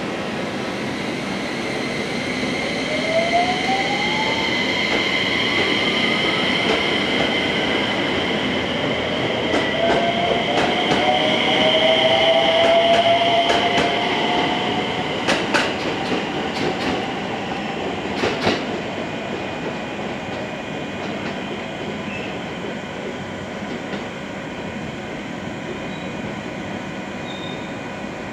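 JR West 227 series electric train pulling out of the platform. Its motor whine rises in pitch as it accelerates, the running noise grows as the cars go by, and the wheels clack sharply over rail joints a few times before the sound slowly dies away.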